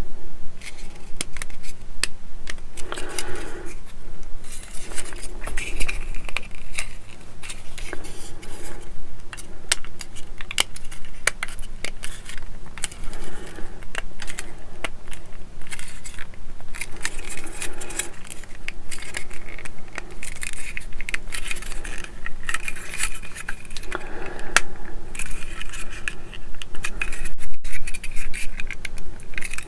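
Hard plastic engine parts of a Meng Kawasaki Ninja H2R model kit being handled, lined up and pressed together, giving many small clicks, taps and scrapes.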